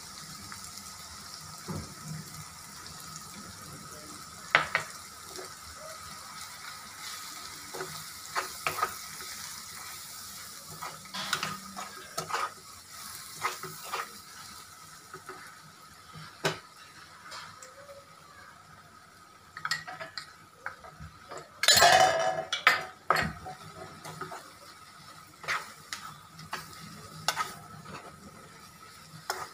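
Wooden spatula stirring and scraping through bell-pepper sabzi in a nonstick kadhai, with scattered taps against the pan over a low sizzle, as gram flour is mixed into the cooking peppers. A louder clatter comes about two-thirds of the way through.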